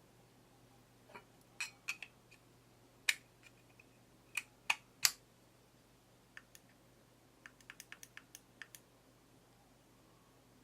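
Sharp clicks and taps from handling an unboxed item: a few loud, scattered clicks, then a quick run of about ten lighter clicks.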